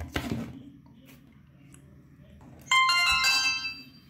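Pan-tilt Wi-Fi security camera starting up after a reset: a faint low whir of its motor as it turns through its self-check, then, near the end, a short bright electronic chime of a few notes from its built-in speaker.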